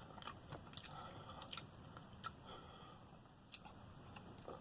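A person chewing food with her mouth close to the microphone, faint, with a scattering of small clicks and crunches.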